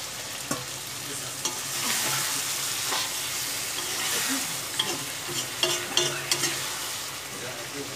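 Chicken and potato curry sizzling in a hot iron kadai as water is poured in, the sizzle swelling for a couple of seconds. A slotted steel spatula stirs and scrapes the pan, giving sharp metal clicks and scrapes over the hiss.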